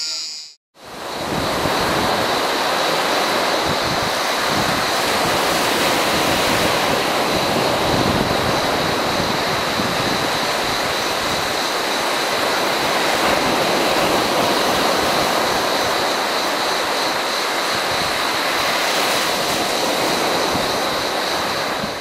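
Sea surf: small waves breaking and washing up the shore in a continuous rushing wash that swells and eases. It begins after a moment of silence at the very start.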